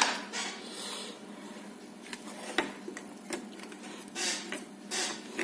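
Light handling sounds of a radio hand microphone being packed back into its plastic casing: scattered sharp clicks, with two short scraping swishes near the end.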